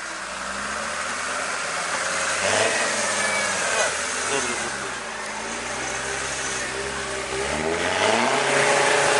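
An off-road 4x4's diesel engine revving up twice: its pitch climbs and holds about two and a half seconds in, drops back to a steadier note, then climbs again near the end.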